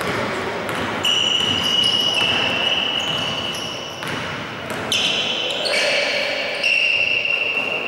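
Basketball game sounds on a hardwood court: the ball bouncing as it is dribbled, and sneakers giving high squeaks that start and stop abruptly, about a second in and again around five seconds in. The sound carries the echo of a large gym hall.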